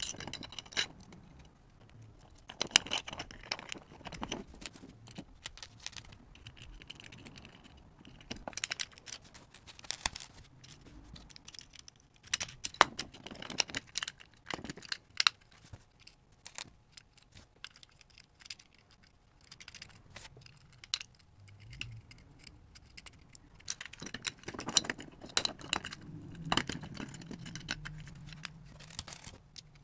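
Irregular small clicks, clinks and rattles, in bunches, from hands handling a guitar effects pedal's enclosure, jacks and circuit board, with a pair of tweezers, while it is put back together.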